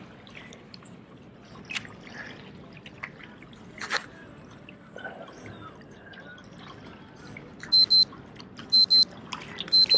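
Faint water lapping and trickling against shoreline rocks, with a few light clicks. Near the end a loud, high electronic alert beep starts, a quick double pulse repeating about once a second.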